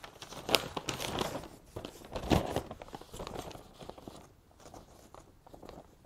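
Sheets of a large newspaper rustling and crackling as they are unfolded and opened out. The sharpest crackles come about half a second and about two and a half seconds in, then it settles to lighter rustles.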